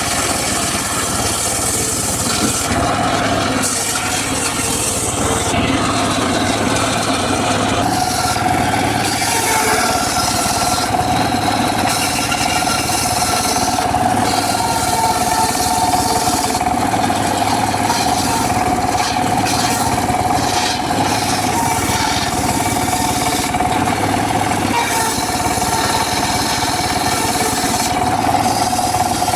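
Homemade circular saw rig running steadily with a continuous machine drone while cutting teak wood. A steady whine comes in about 8 seconds in and holds.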